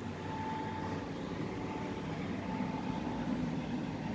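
Steady low background hum, with a faint thin high tone that comes and goes.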